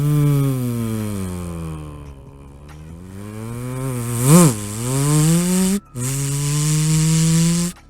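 A man holding a long, buzzing "vvv" sound, made with his upper teeth lightly biting his lower lip. The pitch slides down and back up, with a quick rise and fall midway. He breaks off briefly, then holds it again on a steady pitch.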